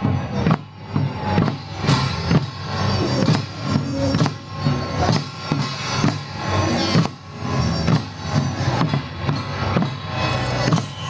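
Taiwanese flower-drum troupe music: small hand-carried drums and other percussion struck in a steady beat, with a melody over it.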